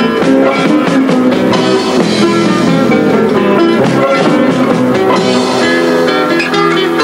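Background music: a band with guitar and drums, playing steadily.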